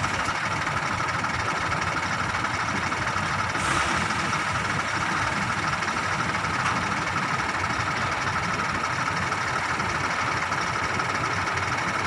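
Heavy diesel engine running steadily at a low idle, with a brief hiss about four seconds in.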